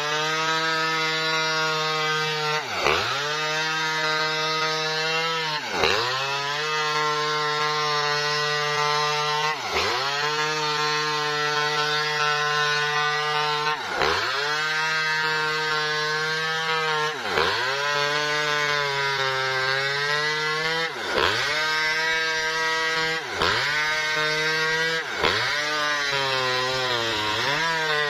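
Small Maestro two-stroke chainsaw running at full throttle, ripping a felled coconut palm trunk lengthwise. Its steady high pitch dips briefly and recovers about every three seconds.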